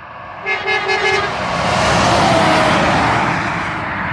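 A semi truck's air horn gives four quick toots, then the truck passes by with a loud rush of engine and road noise.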